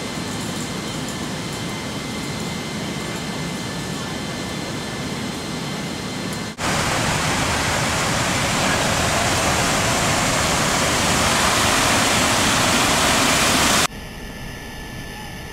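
Steady noise of engines and rushing air inside a C-17 cargo hold in flight. About six and a half seconds in it jumps abruptly louder and hissier, and near the end it drops back to a quieter hum with faint steady tones.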